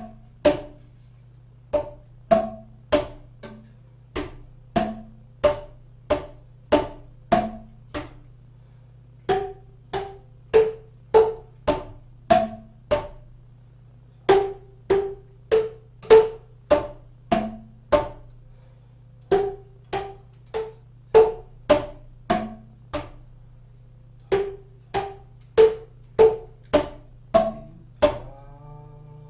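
Boomwhackers, tuned plastic tubes, struck in a repeating accompaniment pattern on a few pitches, about two to three hollow hits a second in phrases with short breaks between them, over a steady low hum.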